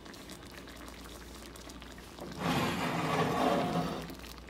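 Cream sauce simmering in a cast-iron skillet. About two seconds in, it turns to louder liquid sloshing and pouring as a spoon scoops the sauce and ladles it over the chicken.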